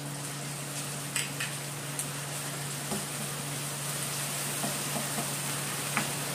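Shrimp paste, onions, tomatoes and garlic sizzling in oil in a wok, stirred with a wooden spatula that taps and scrapes against the metal pan every so often.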